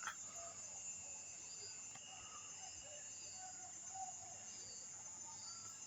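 Night insects trilling steadily at a high pitch, with scattered faint short calls that the walkers identify as ducks on the water.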